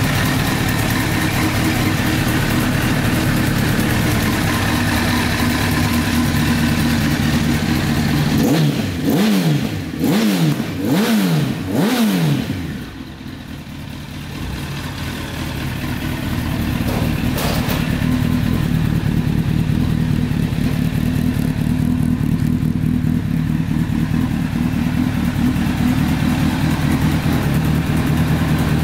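Honda CBR1000RR Fireblade's 998 cc inline-four engine idling steadily. About eight seconds in, the throttle is blipped four times in quick succession, each rev rising and falling back, before the engine settles back to idle.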